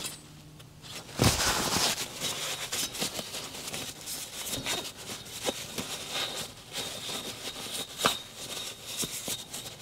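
Paper towel rubbing and crinkling as it wipes the top deck of a freshly fitted aluminium two-stroke cylinder, with a light knock about a second in and another near the end.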